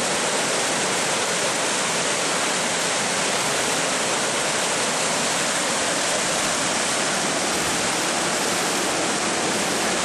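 Whitewater rapids rushing steadily over rocks: a loud, even wash of river noise.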